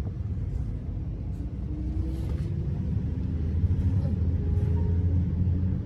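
Bus engine running, heard from inside the passenger cabin as a low steady drone, with a faint whine rising in pitch about two seconds in as the bus pulls along.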